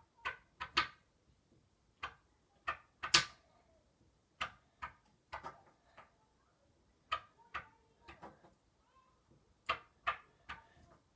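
A fidget tumbler toy being tossed again and again, landing and falling over: a string of sharp, irregular knocks and clatters, some in quick pairs, with the loudest about three seconds in.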